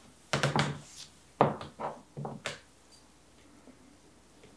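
Several short knocks and scuffs in quick, irregular succession, ending about two and a half seconds in.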